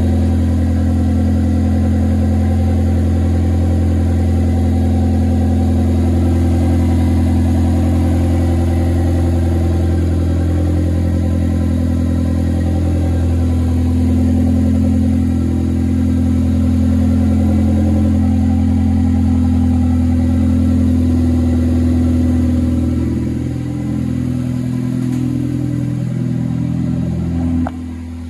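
2004 Nissan Sentra SE-R Spec V's 2.5-litre four-cylinder engine, freshly turbocharged, idling steadily on its first run, with no exhaust fitted yet. The sound wavers and dips over the last few seconds.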